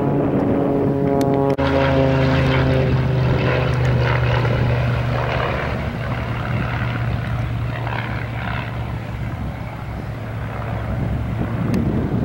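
Aerobatic propeller planes flying overhead, their piston engines droning. The engine note falls slightly in pitch over the first few seconds as a plane passes, then settles into a steady drone.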